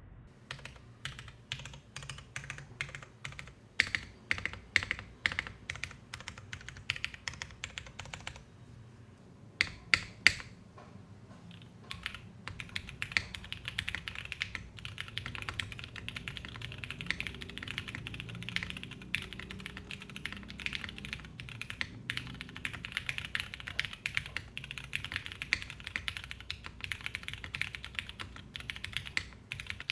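Custom KBD8x MK3 mechanical keyboard with Cherry MX2A Purple switches on a polypropylene plate, keys pressed one at a time for the first several seconds, then two loud strikes after a short pause, then fast continuous typing from about 12 seconds in.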